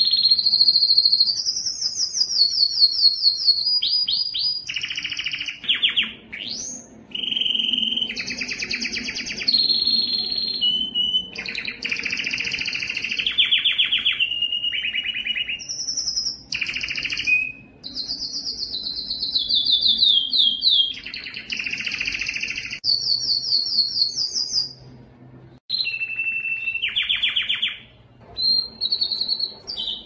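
Domestic canary singing a long, continuous song of fast trills and rolls. Each phrase is a rapid run of repeated notes held for a second or two before it switches to a new one, with brief pauses between, the longest about 25 seconds in.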